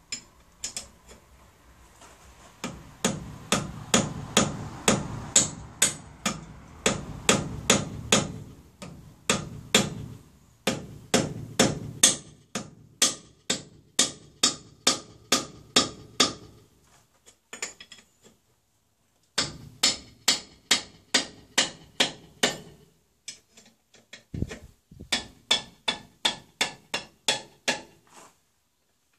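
A hammer strikes a wrench fitted on a tractor's rear wheel nut to break the nut loose. The metallic blows come in quick runs of about three a second, with a pause of about two seconds a little past the middle and a shorter one later.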